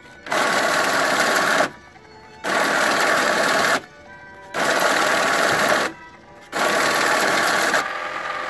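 Billcon NL-100 money counter running four counting runs in a row, each about a second and a half of rapid whirring as banknotes are fed through the rollers, with short pauses between.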